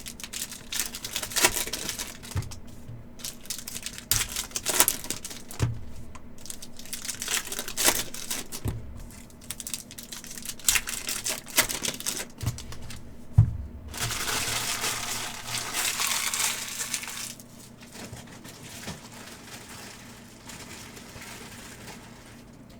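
Foil wrappers of Upper Deck hockey hobby packs crinkling and tearing as packs are opened, with cards handled and light knocks on the table. A longer stretch of steady crinkling comes a little past halfway, and then it goes quieter.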